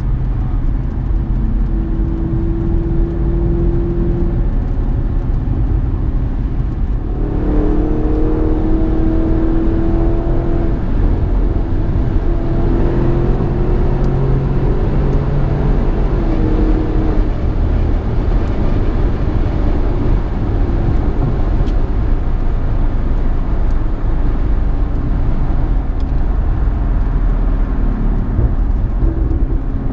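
2016 Audi S6's twin-turbo V8, with APR downpipes and an AWE Touring exhaust, heard from inside the cabin at highway speed over steady tyre and road noise. The engine note steps up and grows louder about seven seconds in, holds for about ten seconds, then settles back to a cruise.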